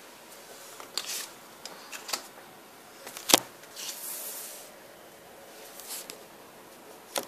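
Trading cards handled on a wooden table: light clicks and taps as cards are picked up and put down. The loudest is a sharp tap about three seconds in, followed by a brief sliding rustle.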